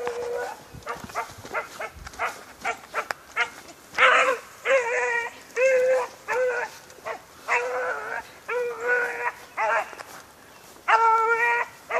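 A dog barking out of view: short, quick barks for the first few seconds, then about ten drawn-out, howl-like barks from about four seconds in.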